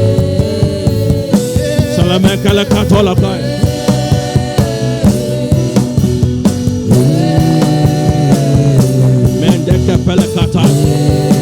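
Worship music with a steady drum beat under held chords that change every few seconds, and a wavering higher line coming in twice.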